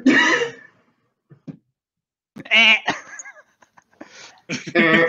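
People laughing: three short bursts of wavering, bleat-like laughter.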